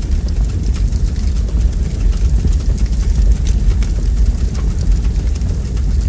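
Wood fire burning in a fireplace: a steady low rumble of flames under frequent, irregular sharp crackles and pops from the burning logs.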